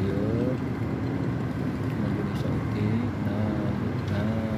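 Steady outdoor background noise with the faint voices of people calling out now and then.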